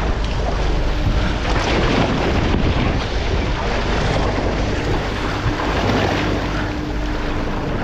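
Wind buffeting the microphone over the wash of the sea against a moving boat, with a faint steady hum joining about five seconds in.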